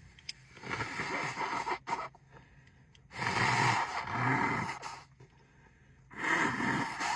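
A woman sneezing repeatedly in a sneezing fit: three loud breathy bursts about two to three seconds apart.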